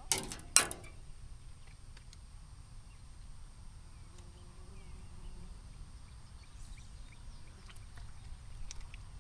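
Two short, sharp noises about half a second apart right at the start, then quiet outdoor ambience: a low steady rumble with a few faint chirps and ticks.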